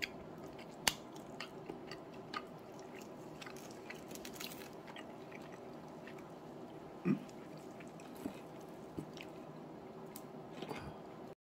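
Metal chopsticks clicking and tapping while they tear apart a sticky soy-glazed braised chicken drumstick, with small wet tearing sounds, over a steady low hum. A dull knock comes about seven seconds in, and the sound cuts off suddenly near the end.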